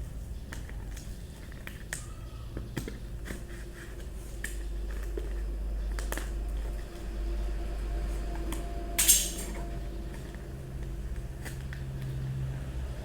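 Cardboard box and packaging being handled and opened: scattered small clicks, knocks and rustles, with one short, loud scratchy burst about nine seconds in. A steady low hum runs underneath.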